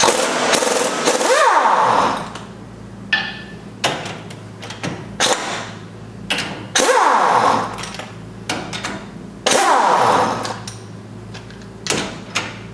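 Pneumatic impact wrench spinning lug nuts off a front wheel hub in three short bursts, at the start, about seven seconds in and about nine and a half seconds in. Short metallic clicks come between the bursts, over a steady low hum.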